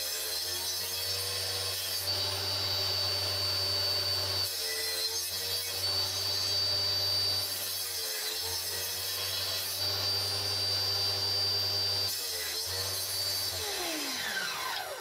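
Table saw running steadily with a hum and a high whine, its pitch dipping briefly three times as the blade cuts through wood. Near the end it is switched off and the blade winds down with a falling whine.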